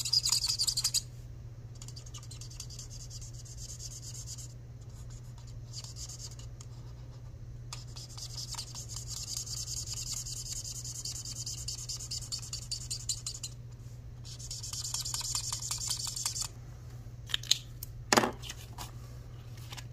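Marker tip scratching across paper in several stretches as boxes on a printed chart are coloured in. Near the end come a few sharp clicks, all over a steady low hum.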